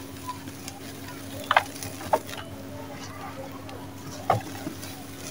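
A dry sand-and-cement chunk being squeezed and crumbled by hand, the powder pouring off, with three short sharp crunches over a steady low hum.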